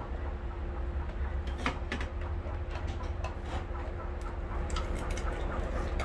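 Scattered clicks and knocks of a screwdriver working at the plastic housing of a car's cool box, in small clusters about a second and a half in and again near the end, over a steady low rumble.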